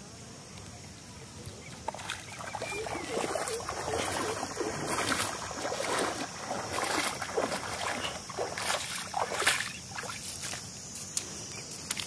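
Wading footsteps through shallow lake water: irregular sloshing splashes with each stride, starting about two seconds in.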